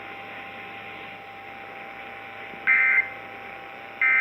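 Emergency Alert System end-of-message data bursts over radio hiss: after a pause, two short, loud, buzzy two-tone digital chirps about a second and a quarter apart, the first about two and a half seconds in and the second right at the end.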